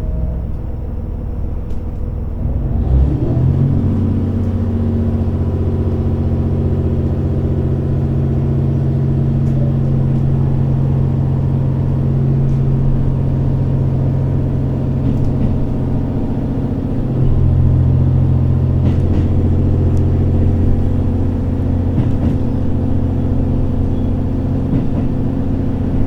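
JR Hokkaido H100 diesel-electric railcar running, heard from inside the car: a steady low drone of engine and drive made of several held tones. About three seconds in the note firms up and holds, and a little past the middle it shifts to a deeper, slightly louder hum.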